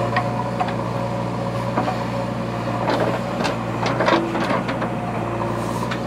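JCB backhoe loader's diesel engine running steadily as the backhoe digs soil, with scattered knocks and scrapes from the bucket and clods, thickest in the middle.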